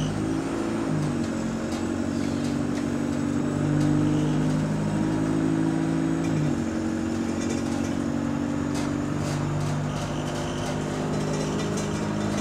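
Engine and transmission of a Go-Ahead London SE92 bus, an Alexander Dennis Enviro200, heard from inside the saloon as it pulls away. The drone rises at first, drops in pitch at a gear change about six seconds in, then runs steadily, with light rattles from shaking fittings. The bus is running in limp mode without kickdown.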